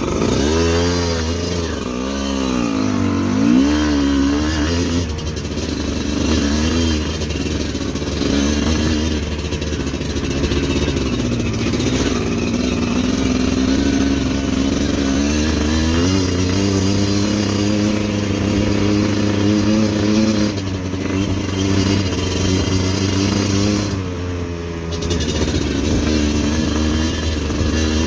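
Motorcycle engine running under varying throttle as the bike is ridden, its pitch rising and falling in the first few seconds, then steadier, with a brief easing off of the throttle near the end before it picks up again.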